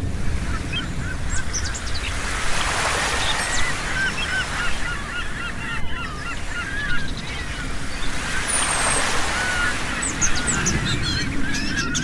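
Surf washing onto a beach, swelling twice, under a flock of birds giving many short, overlapping honking calls.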